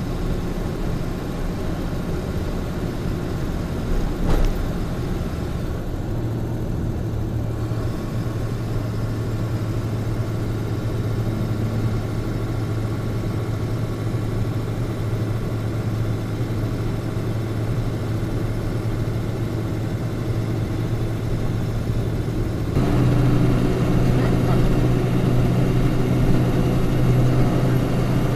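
Engine and tyre noise of a truck driving at motorway speed, heard inside the cab as a steady low drone. There is a brief thump about four seconds in. About three quarters of the way through the drone changes and gets louder.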